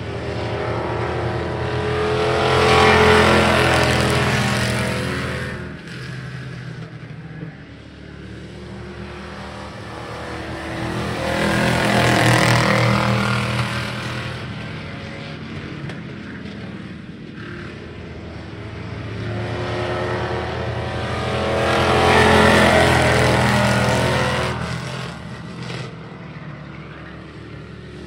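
A small pack of pickup trucks racing round a short oval, their engines running hard. The sound swells loud three times, about every ten seconds, as the trucks pass close by on each lap, and fades between passes.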